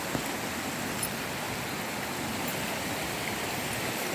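Waterfall water pouring and splashing into a pool: a steady, even rush.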